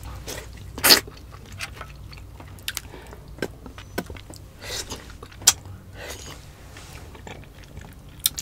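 Close-miked eating sounds of ripe mango flesh being bitten and sucked off the slice: wet smacks and clicks, with a louder burst about a second in and a sharp smack near the middle.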